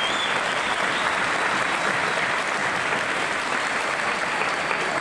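A crowd of many people applauding steadily.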